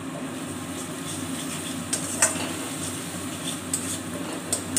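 Metal spatula stirring and scraping mustard-paste masala around a wok, with a few sharp clicks of the spatula against the pan, over a soft steady sizzle of the paste frying in oil.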